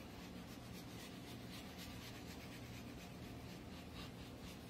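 Sugar sprinkled from a plastic container onto berries in a pie crust: faint, soft rustling as the grains shake out and land.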